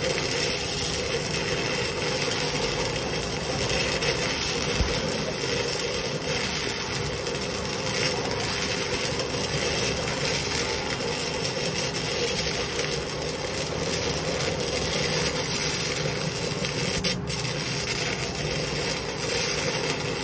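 Stick-welding arc of a 6011 electrode crackling steadily as the rod is whipped out and back along a weld on steel tube.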